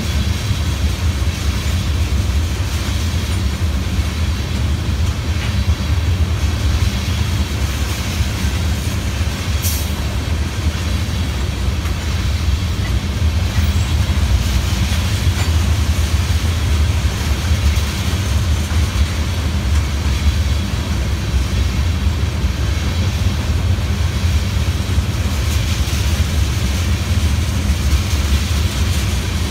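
Loaded ethanol tank cars of a freight train rolling past: a steady low rumble of steel wheels on the rails, with a brief high click about ten seconds in.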